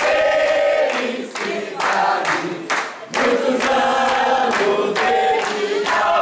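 A crowd of party guests singing a birthday song together, men's and women's voices in unison, while clapping their hands in time.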